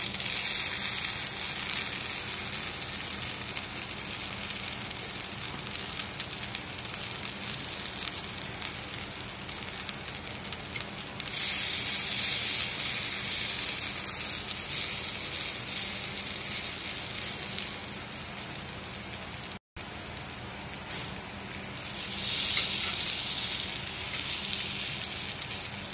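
Ponganalu batter balls sizzling in hot oil in a paniyaram pan as they are turned over. The sizzle grows louder for a stretch about eleven seconds in and again near the end.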